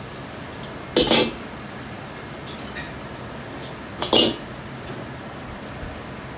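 Two loud metal clanks about three seconds apart over a steady hiss; the second comes as the heavy iron wok is set down on the wok burner ring.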